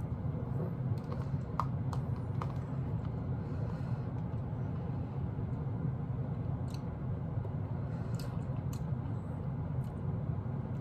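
Eating with a spoon from a small plastic cup: scattered clicks and taps of the utensil against the plastic, with chewing, over a steady low hum.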